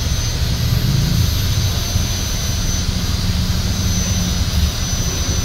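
Steady low mechanical rumble of a busy motorcycle repair shop, with a faint steady high whine above it.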